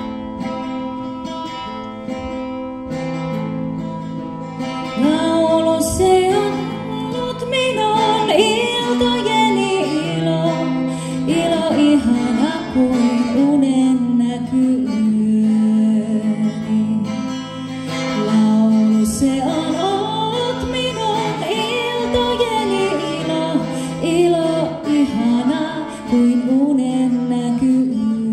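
Live band playing a Finnish song: a guitar intro over held accompanying notes, then a woman's singing voice comes in about five seconds in and carries the melody in phrases.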